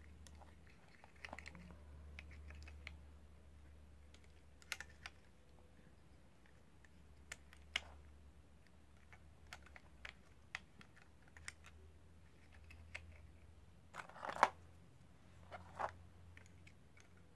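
Scattered light clicks and taps of hands handling cables and plastic parts on a quadcopter frame, with the loudest knocks near the end as the carbon-fibre top plate is set in place. A faint low hum runs underneath.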